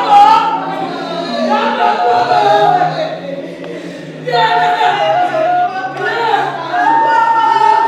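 A group of voices singing, with a short lull between phrases about three seconds in.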